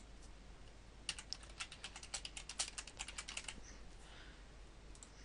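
Typing on a computer keyboard: a quick run of about twenty keystrokes starting about a second in and lasting some two and a half seconds.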